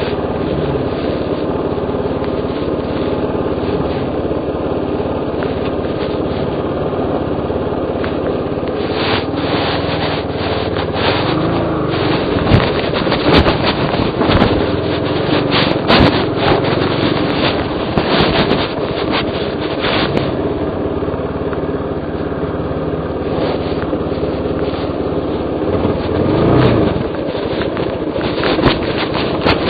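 Dirt-bike engine running at low, fairly steady revs while the bike picks its way over a rocky trail. There are knocks and clatters from the bike going over rocks, thickest from about 9 to 20 seconds in and again near the end.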